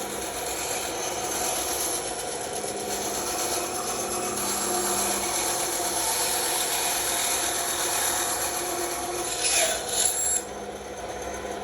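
Bandsaw running with its blade cutting through wood: a steady motor hum under a rasping cut. Near the end the rasp briefly gets louder, then cuts off suddenly.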